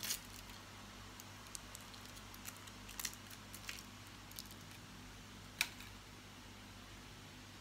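Wrappers of soft cheese portions being peeled open by hand, with a scattering of short crinkles and clicks, the sharpest about five and a half seconds in, over a faint steady hum.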